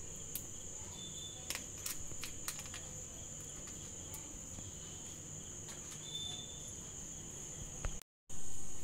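Steady high-pitched cricket chirping, with a few soft clicks and crinkles from turmeric leaves being folded around a fish. Near the end the sound drops out briefly and comes back as a louder rush of noise.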